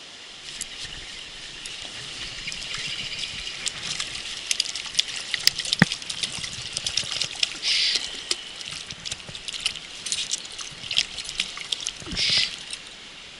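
Water splashing and spattering in irregular bursts, as from a hooked trout thrashing at the surface, with louder splashes about eight seconds in and near the end.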